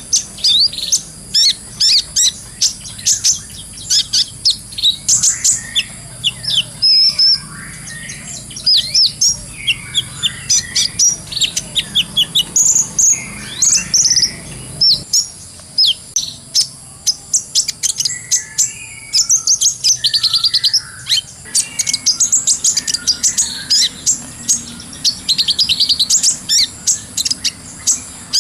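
Kolibri ninja (sunbird) singing a fast, continuous run of very short, high-pitched chirps and twitters, with only brief gaps.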